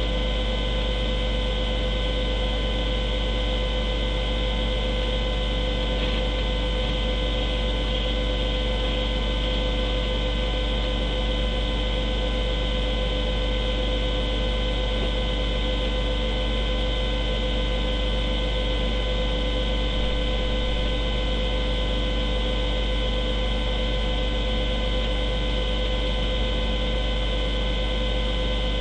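Steady electrical hum and hiss with several fixed whining tones, unchanging throughout.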